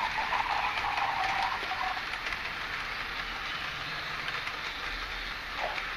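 Train sound played through a small speaker: a held tone fading out about two seconds in, then a steady locomotive running noise with faint clicks and little bass.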